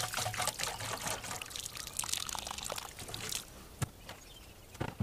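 Water pouring from a plastic watering can's spout into a puddle on soil, a steady splashing stream that stops about three and a half seconds in. A couple of light knocks follow near the end.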